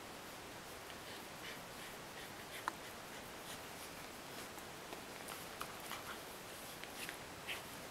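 Faint rustling and scratching of a hand rubbing a dog's fur and the dog wriggling on a bedsheet, with scattered light clicks over a steady hiss. One sharp click stands out about a third of the way in.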